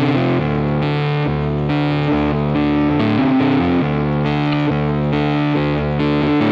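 Background music led by a distorted guitar, its held chords changing about once a second.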